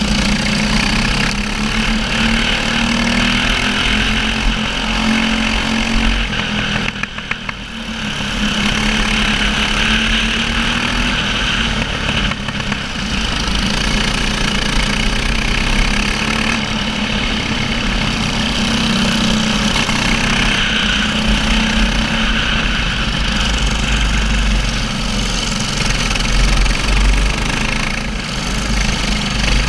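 Racing kart engine heard from on board the kart, running steadily at speed in a pack of karts. The sound drops briefly about seven seconds in, then carries on steady.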